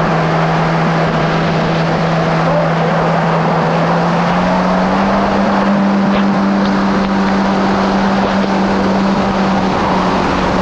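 Kawasaki SX-R 1500 stand-up jet ski's four-cylinder engine running at speed under a heavy rush of water and wind. Its pitch steps up a little about four seconds in and drops back near the end.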